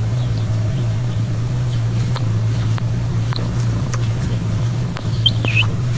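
A steady low hum with faint scattered ticks, and a few short high chirps or squeaks about five seconds in.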